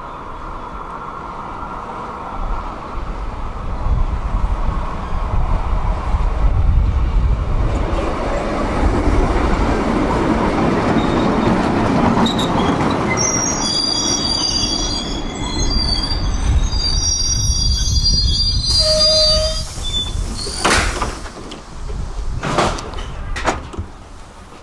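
Tram arriving at a stop: the rumble of its wheels on the rails grows louder, then the wheels squeal with several high tones for about five seconds as it brakes, stopping suddenly. A short tone follows, then a few sharp hisses and knocks near the end.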